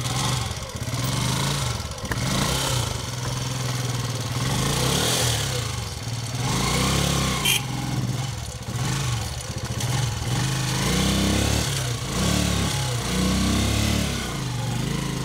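A small engine running steadily with a low hum, its pitch rising and falling a few times as it revs.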